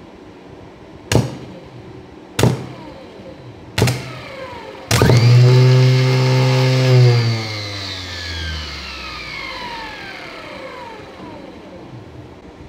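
A 24 V, 500 W four-brush permanent-magnet DC e-bike motor run from an arc-welding inverter's DC output: the lead is tapped onto its terminal three times, each with a sharp snap and a brief whine as the motor jerks round, then held for about two seconds with the motor running at a loud humming whine. When the lead is pulled off, the whine slides down in pitch and fades over several seconds as the motor coasts to a stop.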